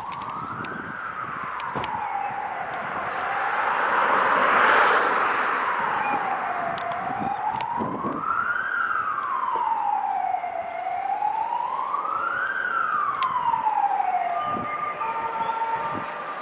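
A wailing siren, its pitch sliding slowly up and down about every four seconds. A swell of rushing noise peaks about four to five seconds in.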